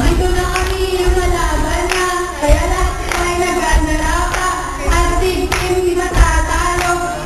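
A group of girls singing a cheer song together into microphones over a PA, the tune held on long notes, with sharp rhythmic beats cutting through it.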